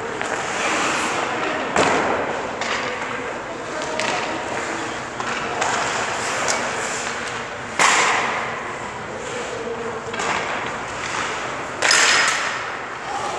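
Three sharp knocks ringing out in an ice arena, about two, eight and twelve seconds in, each trailing off in echo, over a steady wash of rink noise.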